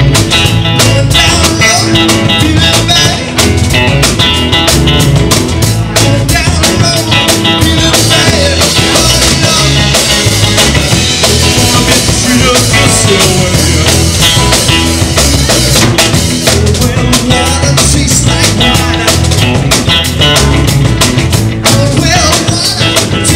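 Rock music with a drum kit, playing loud and steady.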